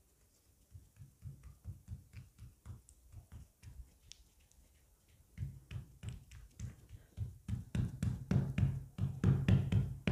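Fingers patting and pressing a flour-dusted stack of layered roti dough on a work table: a string of soft, quick pats, sparse at first, then louder and closer together from about five seconds in.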